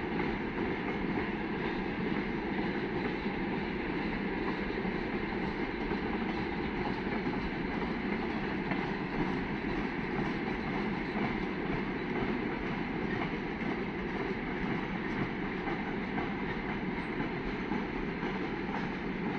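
Freight train rolling past on the rails: a steady, unbroken noise of the wagons' wheels on the track.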